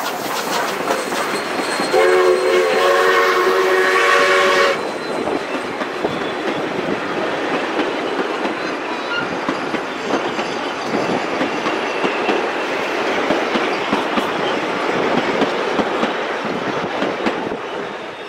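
Ex-South Australian Railways broad-gauge steam train, double-headed behind 621, passing close by, its carriage wheels rumbling and clattering on the rails. About two seconds in, a steam whistle sounds one multi-note blast lasting nearly three seconds.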